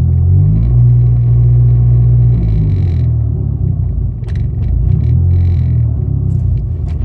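2005 Dodge SRT-4's turbocharged 2.4-litre four-cylinder engine idling roughly, its idle speed rising and falling on its own: a surging, hunting idle that comes and goes, whose cause is not known.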